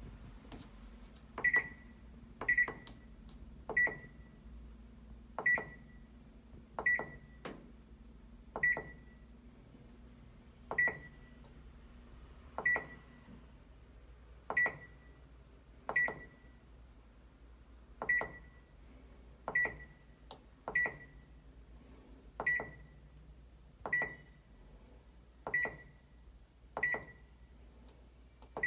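Control panel of a Teco W1068XS washing machine beeping as its buttons are pressed one after another: about eighteen short, high beeps, each starting with a click of the button, spaced irregularly a second or two apart.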